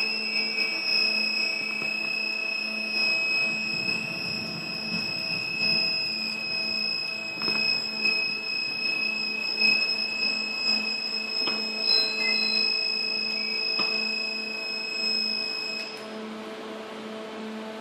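An electronic alarm sounding one steady high-pitched tone, which cuts off suddenly about sixteen seconds in.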